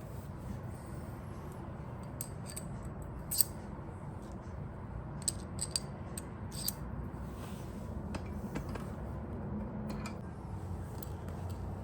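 Small metal parts and hand tools clinking and clicking as they are handled: about a dozen light, irregular clicks, the sharpest about three and a half seconds in, over a steady low rumble.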